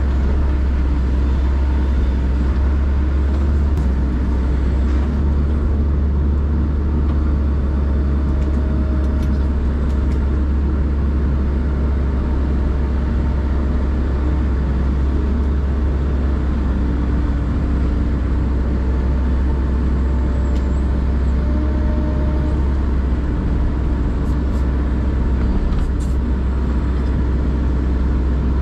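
Hitachi excavator's diesel engine running steadily under load as the arm works, heard from inside the cab as a constant low drone. A faint higher whine comes and goes over it.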